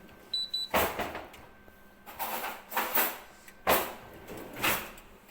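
A brief high electronic beep from a Siemens dishwasher's beeper about a third of a second in. It is followed by five bursts of scraping, clattering handling noise spread over the next few seconds, the loudest sounds present.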